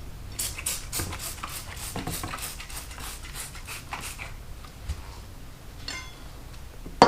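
Metal tire irons and bead breaker clinking and scraping against a motorcycle wheel rim while working to break the tire's bead, in a quick run of clicks, then a single sharp metal clank with a short ring near the end.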